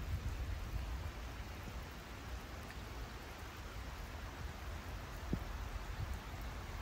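Steady heavy rain: an even hiss with a low rumble underneath and a single faint drop tap a little past five seconds in.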